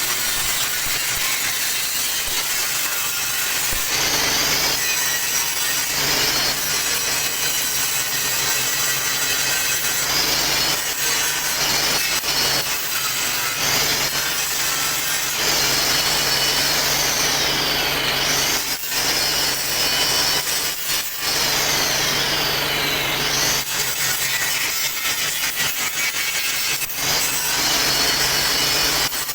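A power tool working steel during the building of a concrete mixer drum. It makes a continuous harsh grinding noise whose whine slides up and down several times, with a few brief dips.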